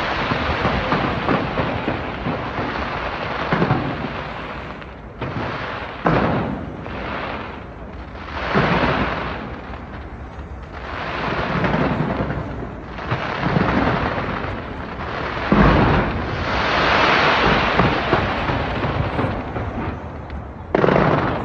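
Large fireworks display: a dense, continuous crackle of shells bursting, swelling and fading in waves, with louder single booms standing out every few seconds.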